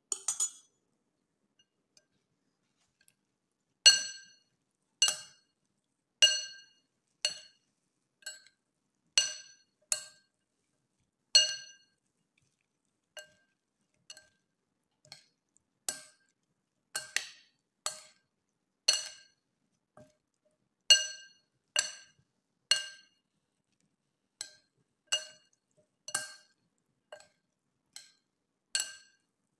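Metal spoon and fork clinking against a white ceramic bowl while tossing a salad. There are a few quick clinks at the start, then after a short pause clinks come about once a second, each ringing briefly.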